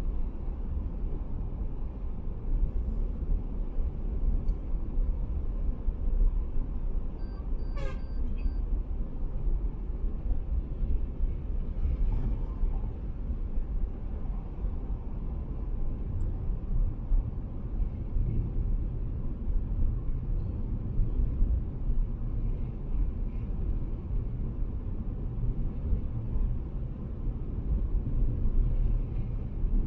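Steady low rumble of tyres and engine from a car cruising at expressway speed, heard from inside the car, with a single short click about eight seconds in.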